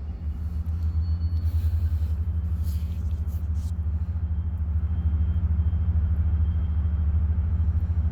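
A deep, steady low rumble with a fast, even throb, holding without a break: an unexplained rumbling drone of the kind first taken for trains on a track.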